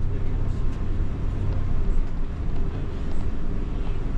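Bus engine and road noise heard from inside the passenger cabin: a steady low hum as the coach drives along.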